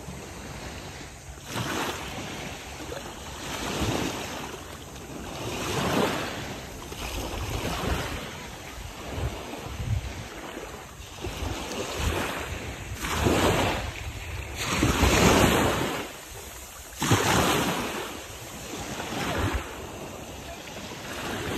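Small sea waves washing in and pulling back every couple of seconds, with wind buffeting the microphone.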